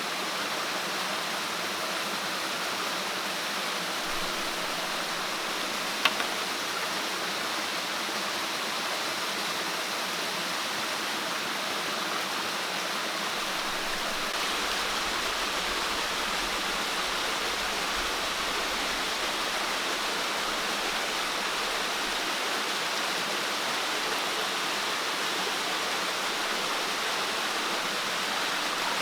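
Steady rushing of flowing water, with a single sharp click about six seconds in.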